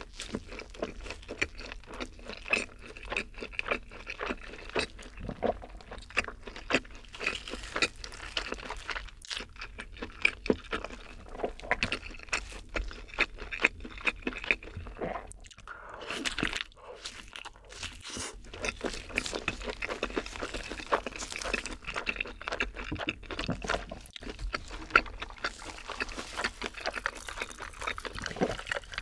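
Close-miked chewing of a mouthful of double cheeseburger: a dense run of small crunches and mouth clicks, easing off briefly about halfway through.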